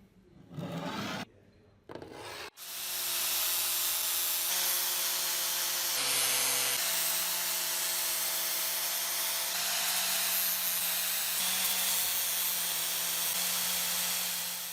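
Electric power tool running steadily, a motor hum under a loud abrasive hiss as it works the material. It starts about two and a half seconds in, after a few brief knocks.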